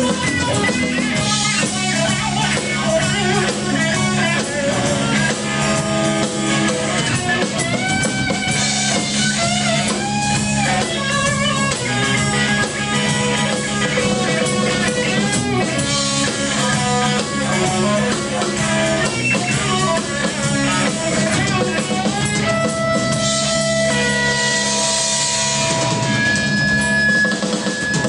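Live rock band: lead electric guitar soloing over bass and drums, with bending, wailing lines that settle into long held notes in the last few seconds.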